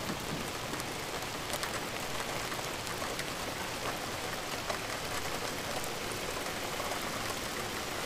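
A steady hiss with faint scattered ticks through it.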